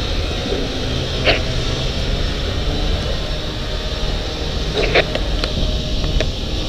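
Steady vehicle engine rumble and road noise, with a few brief sharp sounds over it about a second in and again around five to six seconds in.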